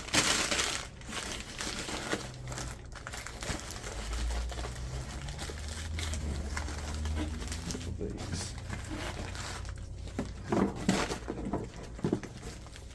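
Newspaper packing paper crinkling and rustling as items are unwrapped by hand, loudest at the start and again near the end, with a low rumble for a few seconds in the middle.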